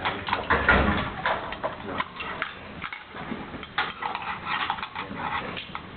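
Steel parts of an M2 .50 calibre machine gun being handled and fitted together during reassembly: irregular metallic clicks and clacks, with a heavier thud about a second in.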